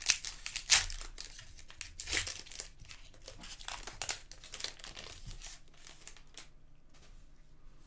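A hockey card pack's foil wrapper being torn open and crinkled by hand, an irregular crackling that is densest in the first couple of seconds and thins out toward the end.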